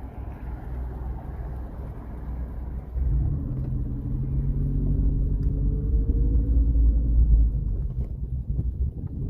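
2011 Scion tC's 2.5-litre four-cylinder engine and road rumble while driving. About three seconds in it grows louder, with an engine tone climbing slightly in pitch as the car picks up.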